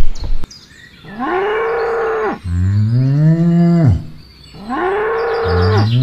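Cow mooing twice, the same two-part moo each time: a higher held note, then a deeper one that falls away at its end. A loud noisy clatter stops about half a second in, before the first moo.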